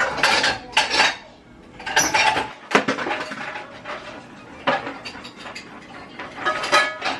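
Utensils clinking and clattering against dishes and pans in several short bursts while food is handled.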